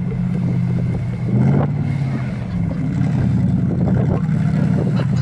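Off-road vehicle's engine running steadily, its revs rising briefly about a second and a half in.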